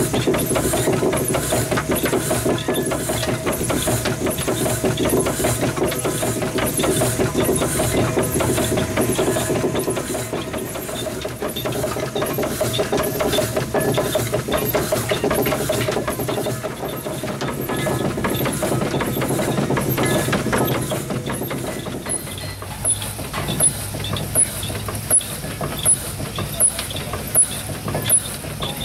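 Twin-cylinder steam engine of a 1912 Waterous 12-ton road roller running steadily, with the rhythmic clatter of its crank and valve gear and a light steam hiss. About 22 seconds in, the sound changes and a sharp click repeats about every 0.7 seconds.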